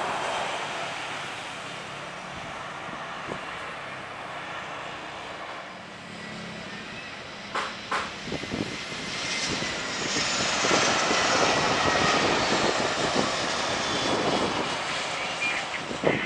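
Airbus A320 jet airliners taking off at full thrust: a steady jet engine rumble, then louder from about ten seconds in as the second aircraft rolls and lifts off, with a high whine that slides slowly down in pitch as it passes. Two short sharp knocks come about halfway through.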